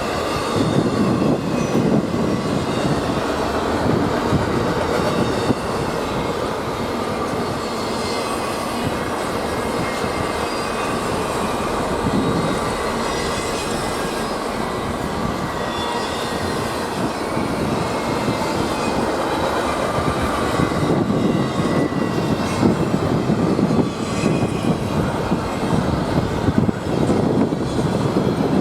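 A freight train's cars rolling past on the rails: a steady rumble of wheels on track, with a faint high wheel squeal held over it.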